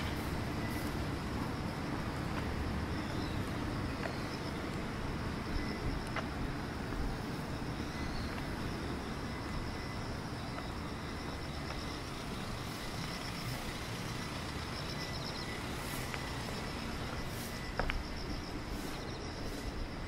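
Outdoor city ambience: a steady low rumble of distant road traffic, with insects chirping in a high, pulsing band. Near the end a car passes close by, the low rumble rising.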